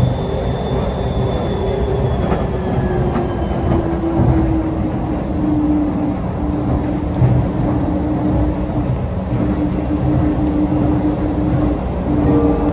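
Airport people-mover train running, with a steady rumble and a motor whine that slowly falls in pitch over the first few seconds, then holds level.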